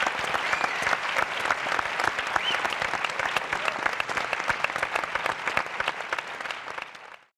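Audience and panel applauding, a dense patter of many hands clapping that fades out near the end.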